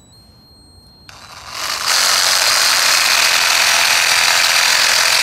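Cordless mini reciprocating saw with a wood blade starting up about a second in and running at full speed, a loud steady mechanical rattle, as it cuts through a woody shrub stem.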